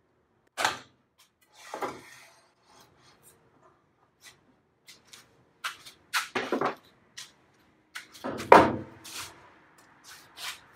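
A freshly sawn cherry board being handled on the bandsaw table: wood rubbing and sliding, with scattered knocks and clicks. The loudest scrape comes about eight and a half seconds in.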